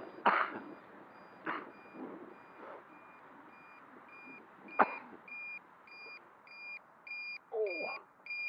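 Electronic beeper sounding a steady, evenly spaced beep, about two a second, faint at first and much louder from about halfway on. A few sharp knocks are also heard, the loudest about five seconds in.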